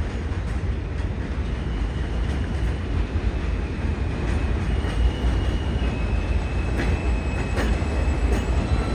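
New York City subway J train approaching on the elevated steel structure: a steady low rumble that slowly grows louder. From about a second and a half in, faint high wheel squeals are each held for a second or two, and a few wheel clicks come over the switches near the end.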